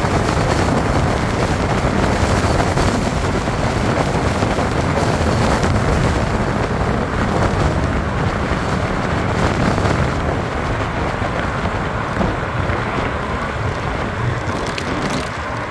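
Wind rushing over the microphone, with road and tyre noise, on a Miku Super electric motorcycle cruising at about 80 km/h; no motor sound stands out. The rush eases somewhat in the second half as the bike slows to about 45 km/h.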